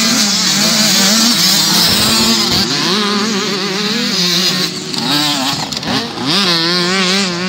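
Motocross dirt bikes racing past, their engines revving up and down through the gears, with one sharp rise in revs about six seconds in.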